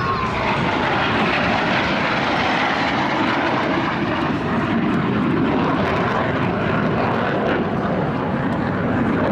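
Jet noise from a US Navy F/A-18 Hornet's twin turbofans as the jet flies off and climbs away: a falling whine in the first moment, then a steady loud rushing roar.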